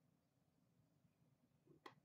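Near silence: room tone, with one faint short click near the end.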